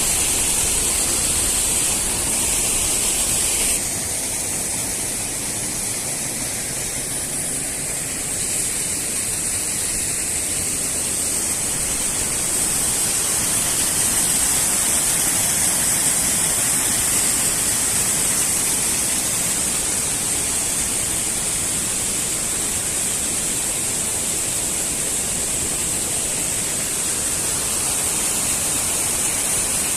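Steady rushing of a waterfall, water cascading over rock. It becomes slightly quieter and duller about four seconds in.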